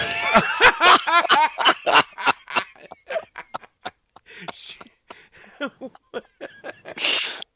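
People laughing hard. Quick high-pitched laughs come in rapid bursts at first, then thin out into scattered snickers and breaths, with a louder breathy laugh near the end.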